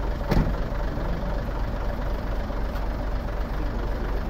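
Hino FH truck's diesel engine idling steadily, with a single thump about a third of a second in.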